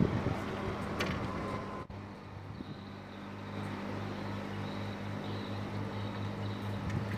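Steady low hum of a boat engine running, throbbing about five times a second, with wind on the microphone in the first two seconds.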